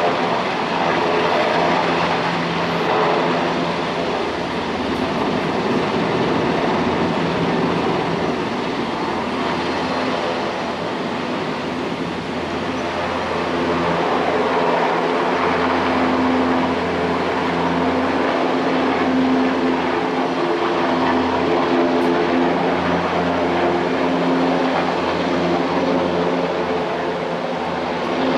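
Helicopter running steadily, its engines and rotor making a constant loud drone with several held low tones.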